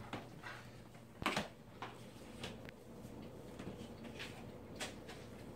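A few short light knocks and clicks, the loudest about a second in, as paper plates of wet cat food are set down on a tile floor and cats begin eating from them.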